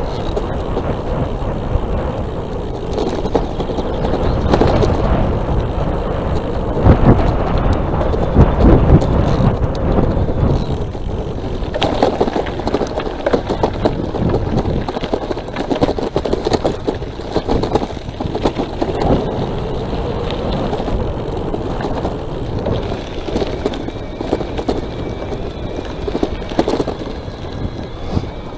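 Riding an electric bicycle: steady wind buffeting on the microphone and tyre-on-road rumble, with frequent knocks and rattles over bumps.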